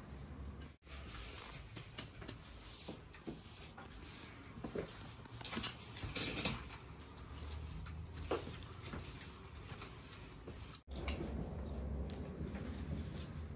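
Food being handled on a metal worktable: scattered light taps and knocks, with a short burst of rustling near the middle, over a low background hum.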